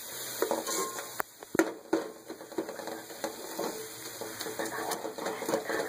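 Metal spoon stirring and scraping a masala of onion, tomato and spices frying in oil in a metal pot, with a light sizzle. A few sharp knocks of the spoon against the pot come about a second or two in. The masala is being browned until the oil separates.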